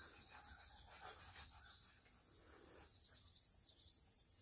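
Near silence: faint outdoor ambience, with a short run of faint high chirps about three seconds in.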